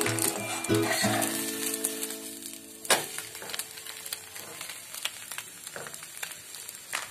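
Egg and paratha frying in oil in a pan: a steady sizzle, with a sharp spatula knock about three seconds in as the roll is turned over.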